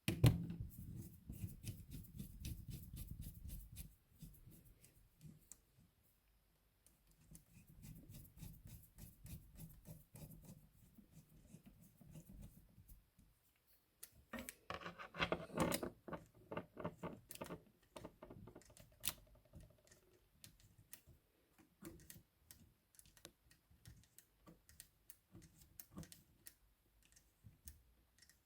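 Clicks, rattles and rubbing of an Olivetti Lettera 22 portable typewriter's metal parts being handled by hand during reassembly. The sounds come in uneven spells of clattering with pauses between them, then as scattered single clicks near the end.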